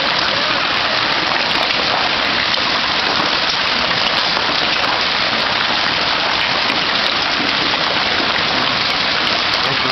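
Hail falling on pavement, a garage roof and other objects: a dense, steady hiss of many small impacts.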